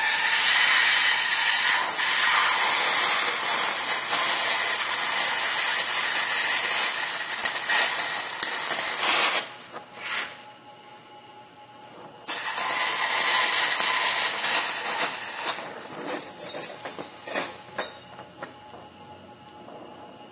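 A DHC2000 oxy-acetylene cutting torch hissing steadily as it cuts through chromoly tubing. The hiss drops away for about three seconds midway, then returns and trails off near the end in scattered pops and crackles.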